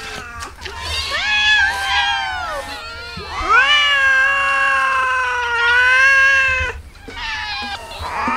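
A crowd of hungry street cats meowing over one another, begging for food. Several short overlapping meows come first, then one long, loud drawn-out meow lasting about three seconds, and more calls start again near the end.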